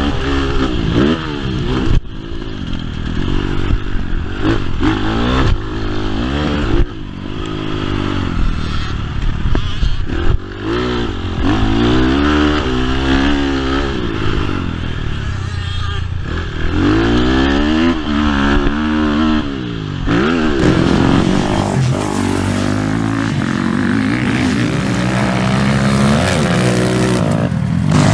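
BHR 300 R dirt bike engine revving up and dropping back again and again as the bike is ridden hard round a motocross track, its pitch climbing in repeated sweeps, with short knocks in between. About three quarters of the way through, the sound turns brighter and more even.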